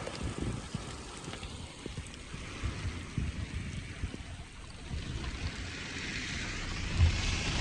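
Wind buffeting the microphone in uneven gusts over a steady rushing noise, which thins in the middle and swells again near the end.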